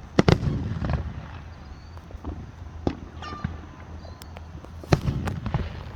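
Fireworks going off: a string of sharp bangs and pops, the loudest a quick pair right at the start and another just before the end.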